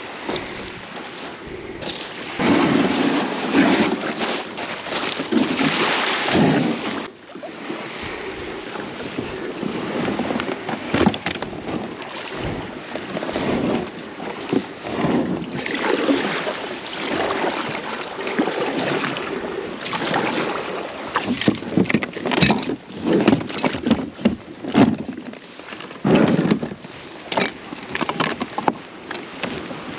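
Water splashing and lapping against a plastic pedal kayak as it is pushed off a pebble beach and pedalled out, with irregular knocks of gear against the hull.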